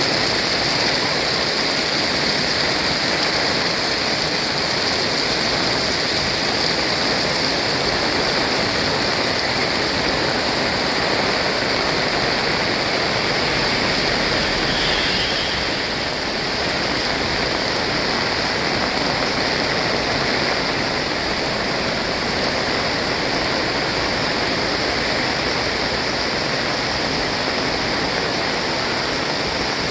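Heavy rain falling in a steady, dense hiss with no let-up.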